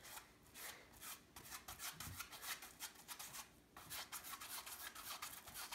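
Paintbrush rubbing gesso across a canvas in faint, quick back-and-forth strokes.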